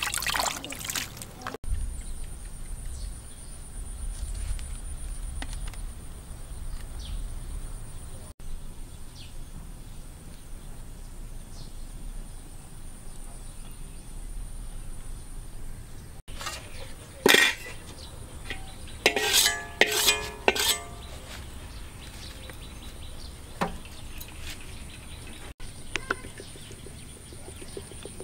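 A few sharp clinks and clatters of metal cookware being handled, some ringing briefly, over a low wind rumble on the microphone and a faint steady high whine.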